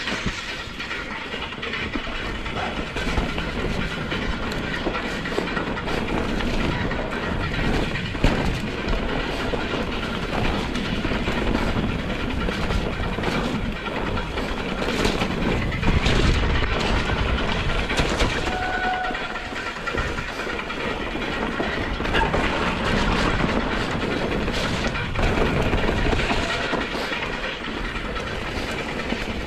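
Mountain bike being ridden over rough trail: a steady rush of tyre and air noise, with frequent rattles and knocks from the bike over the bumps.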